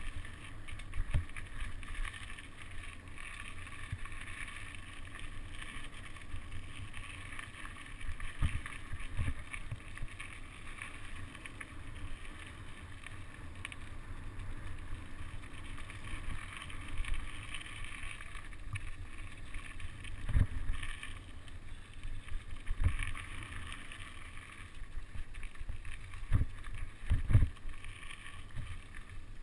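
Mountain bike riding over a dirt woodland trail: a steady rush of wind and tyre noise, broken by low thumps as the bike hits bumps, the hardest two near the end.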